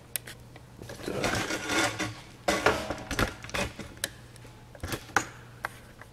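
Handling noise: scattered sharp clicks and two stretches of rustling, over a steady low hum.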